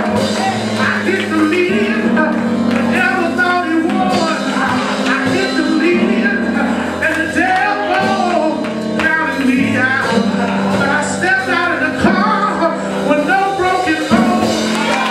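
Live church music: voices singing over steady, held instrumental chords.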